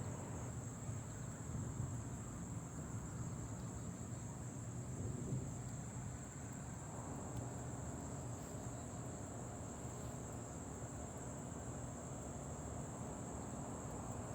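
A steady, unbroken high-pitched insect chorus, with a low steady rumble of background noise underneath.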